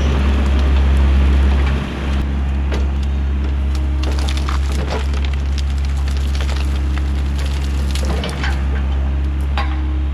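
Excavator's diesel engine running steadily under many sharp cracks and snaps of burning and broken brush.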